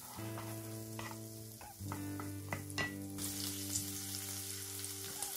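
Strips of guanciale sizzling in a frying pan as their fat renders over moderate heat. A wooden spatula stirs them at first with a few short clicks against the pan, and the sizzle grows stronger about three seconds in.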